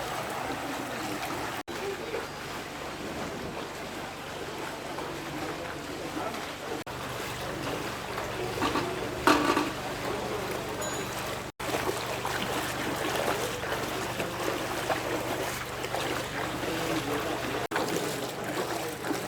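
Outdoor ambience of a flooded area: indistinct voices over water sounds, with a low steady motor hum that gets stronger about a third of the way in. The sound drops out abruptly for an instant three times.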